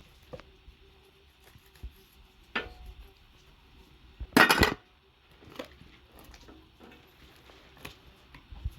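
Cooking utensils and dishes knocking and clinking now and then, with one louder clatter about four and a half seconds in.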